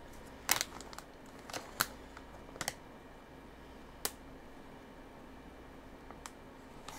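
Snack packaging being handled: about half a dozen sharp, irregular clicks and crinkles, most of them in the first three seconds.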